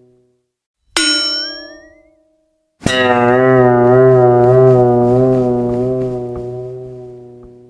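Cartoon sound effects for a dizzy, fainting gag. A sharp metallic clang with a rising whistle rings out and fades, then another clang opens into a long, low, wavering tone that slowly dies away.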